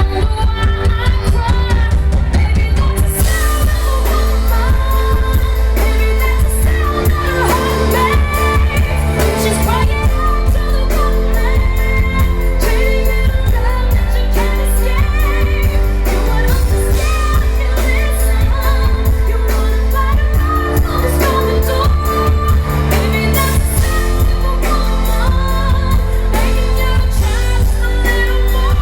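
Live pop concert: a woman singing a pop song with band accompaniment and a heavy, steady bass, recorded from the audience.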